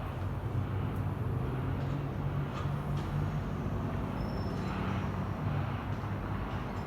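Metrolink train's diesel locomotive running with a steady low engine hum, with a few faint clicks and a brief high squeal about halfway through.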